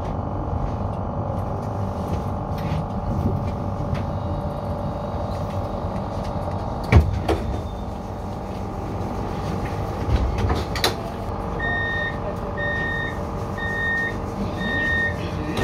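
CAF Urbos 3 tram running slowly, heard from the driver's cab: a steady electric hum and rumble, with a few sharp knocks as the wheels cross track points about seven and ten seconds in. In the last few seconds a run of short beeps sounds, about two a second.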